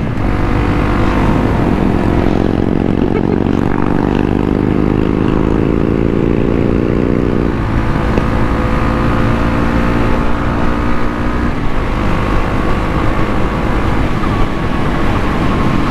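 Motorcycle engines on the road: one engine's note climbs steadily for several seconds as the bike accelerates, drops off sharply about seven and a half seconds in, then carries on at a steadier pitch.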